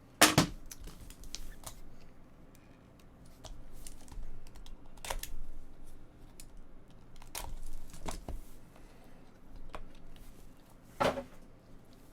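Scattered clicks, taps and light rustles of a trading-card box and its packaging being opened and handled, with a louder knock just after the start and another near the end.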